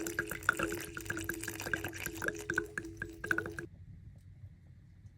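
Water running and dripping over a steady hum; both stop suddenly about three and a half seconds in, leaving a faint low hum.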